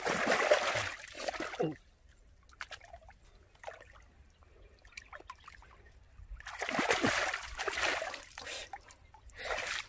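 Water splashing in three bursts, each up to about two seconds long, with quieter spells between.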